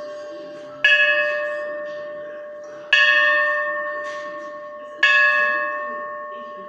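Large bell, its three cracks closed by silver brazing, struck three times about two seconds apart, each strike ringing out and slowly fading.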